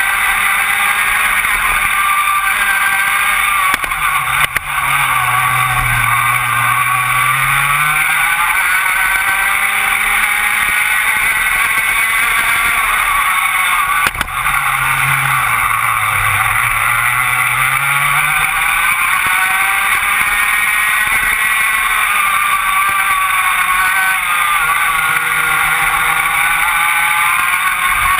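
Rotax Max 125cc two-stroke kart engine running at high revs. The revs fall twice, about four and fourteen seconds in, and climb back up each time.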